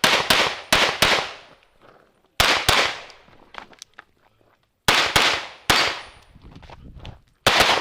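Pistol shots from an Open Division competition handgun, fired mostly in quick pairs with pauses of a second or two between groups. Each shot is a sharp crack with a brief echoing tail.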